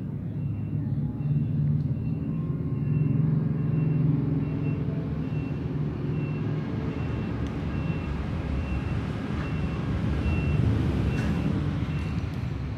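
Steady low rumble of a motor vehicle engine running, with a short high beep repeating about twice a second.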